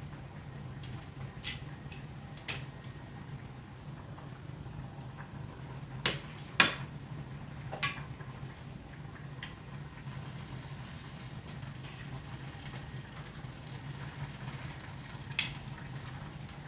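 A utensil clinking against a skillet about seven times at irregular intervals as chicken is settled into a cream sauce, over a steady low hum.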